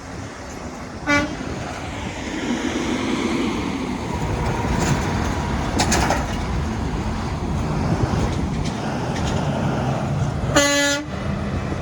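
Semi truck horn sounding twice: a brief toot about a second in and a longer honk of about half a second near the end, over a steady truck engine rumble.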